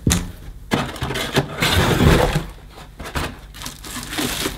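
Cardboard box packaging being handled: a moulded pulp packing insert lifted out with irregular scraping, crunching and knocking, then plastic wrapping rustling near the end as the packed vacuum cleaner is gripped.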